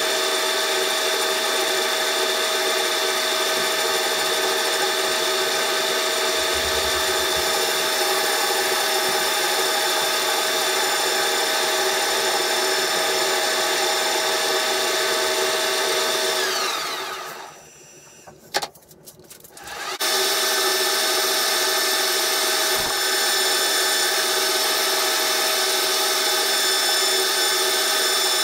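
Pratt & Whitney metal lathe running with its chuck spinning bar stock, a steady whine of motor and gearing. About seventeen seconds in it is switched off and winds down, falling in pitch. A click follows, and about three seconds later it starts up again and runs steadily.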